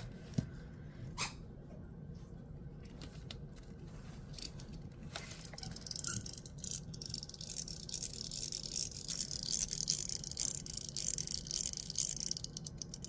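Gao Studio Magnetic Master 2.0 haptic coin fidget, its spring-loaded detents fitted with 3 mm silicon nitride balls, being worked by hand. A few separate clicks come first, then from about six seconds in a fast, continuous fine clicking rattle.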